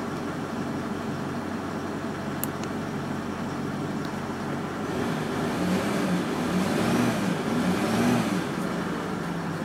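Range Rover L405 engine idling, then revved in three short blips about five seconds in, each rising and falling back to idle. The engine is in restricted-performance mode from a MAP sensor fault and is not wanting to go.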